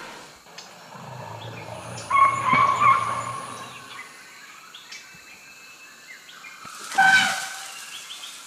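Asian elephants trumpeting twice as they charge at a pack of wild dogs: a wavering shrill call about two seconds in and a harsher blast near the end, with a low rumble under the first.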